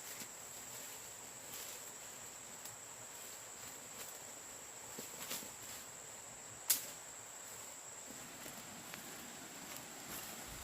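Insects, crickets or the like, keeping up a steady high-pitched drone. Scattered light clicks sound over it, with one sharp click about two-thirds of the way through.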